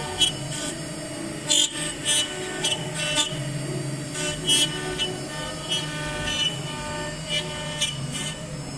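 CNC router spindle running as an engraving bit cuts into MDF: a steady tonal hum with short, sharp bursts of cutting noise every half second or so.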